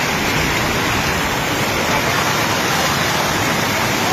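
Floodwater rushing in a fast, turbulent torrent: a loud, steady rushing noise with no let-up.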